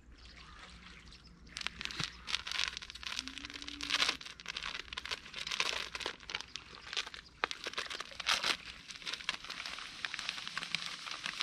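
A packet of brown breadcrumbs being handled and opened, crinkling and tearing irregularly from about a second and a half in, then the crumbs poured out into the groundbait mix.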